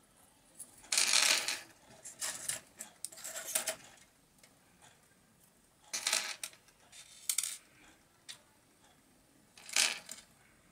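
Loose LEDs and other small electronic components handled on a tabletop, their thin metal leads clinking and rustling. The sound comes in several short clusters of clicks, the loudest about a second in.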